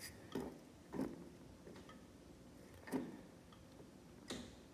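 A few faint, irregular clicks and taps, about five in all, the firmest about a second in and near three seconds in, over quiet room tone.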